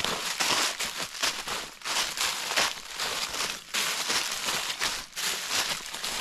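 Footsteps crunching through a thick layer of fallen leaves, one crunch after another at a steady walking pace.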